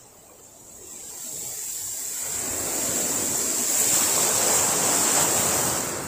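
Small sea waves breaking and washing up the beach. The surf is quiet at first, swells about a second in, is loudest past the middle, and eases off near the end.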